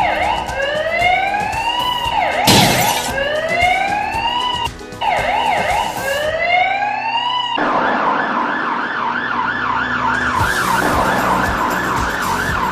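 Electronic siren from a battery-powered toy vehicle: a repeating rising wail, about one rise a second, that switches about seven and a half seconds in to a fast warbling yelp of about three swings a second. A short clatter sounds about two and a half seconds in.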